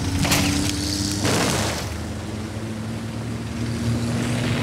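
Propeller aircraft engine droning steadily, with a brief rush of noise about a second in.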